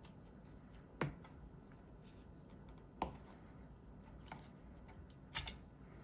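Three separate sharp knocks of kitchen utensils, about two seconds apart, the last the loudest, over faint room noise.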